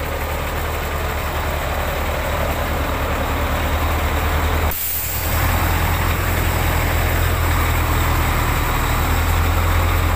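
Volvo FM420 truck's diesel engine idling, a steady low rumble with a hiss over it. The sound breaks off briefly about five seconds in and comes back slightly louder.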